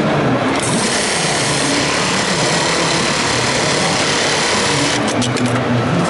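ZOJE industrial electronic pattern sewing machine running at speed, stitching a velcro strip held in its clamp frame: a fast, steady needle run, with a few sharp clicks about five seconds in.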